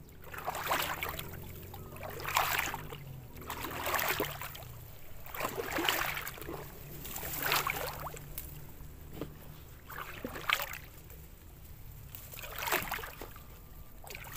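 A person wading through floodwater, each stride giving a splashing slosh, about one every one and a half to two seconds.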